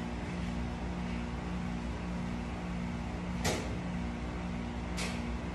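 A steady machine hum with a few fixed low tones, broken twice by short hissy bursts, about three and a half and five seconds in.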